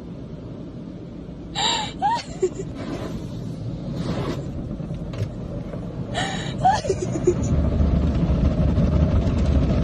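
Car wash machinery and spray running, heard from inside the car's cabin as a steady low rumble that grows louder in the second half. Twice, about two and six seconds in, a short high whimper breaks through.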